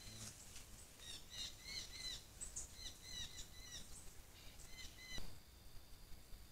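A bird calling in a fast run of short chirps, each note dipping in pitch, for about four seconds. The calls cut off abruptly about five seconds in, leaving a faint steady high tone.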